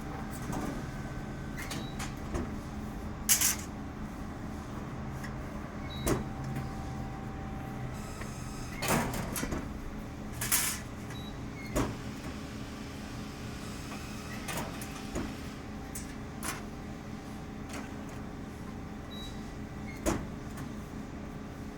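Press brake running with a steady electric motor hum, with about half a dozen sharp clicks and clunks spread through it.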